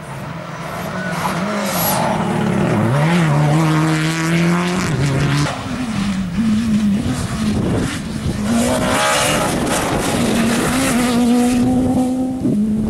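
Rally car engines at full throttle, the note climbing and dropping back at each gear change, heard over two separate car passes with a break about five seconds in.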